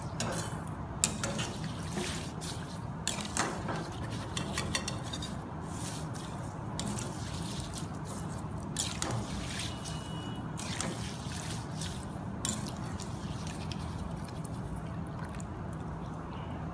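Curry leaves frying in hot oil, crackling and sizzling, while a perforated metal ladle stirs and scrapes in the pan, with a few sharper clinks of metal on metal. A low steady hum runs underneath.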